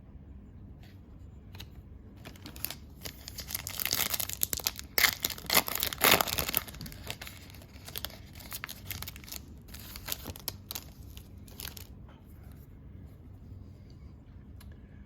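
A foil trading-card pack being torn open and its wrapper crinkled: a dense stretch of tearing and crinkling a few seconds in, then scattered lighter rustles and clicks as the cards are handled.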